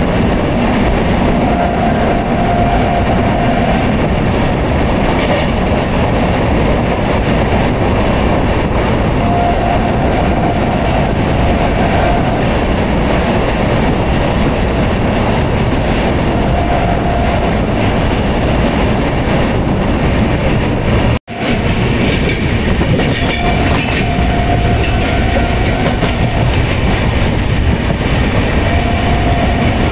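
Indian Railways express train running along the track: a steady loud rumble of wheels and coaches with a clickety-clack over rail joints. A thin tone comes and goes several times, and the sound cuts out for an instant about two-thirds of the way through.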